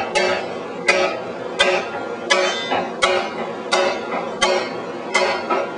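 Steady, even hammer blows on steel at the forge, about one every 0.7 s, eight strokes in all, each ringing briefly after the strike.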